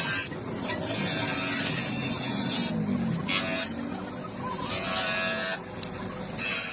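A hiss in repeated bursts, one long and several shorter, over a low rumble.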